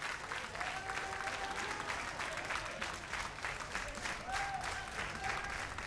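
Concert audience applauding steadily, with a few short calls or shouts over the clapping.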